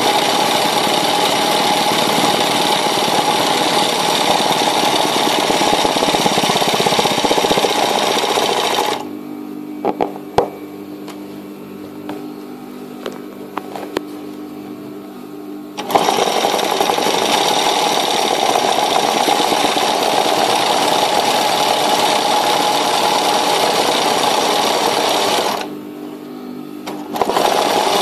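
Sewing machine stitching free-motion embroidery at a steady fast rate, in runs. It runs for about nine seconds, then stops for about seven seconds, when only a low hum and a few clicks remain. It runs again for about ten seconds and gives a short burst near the end.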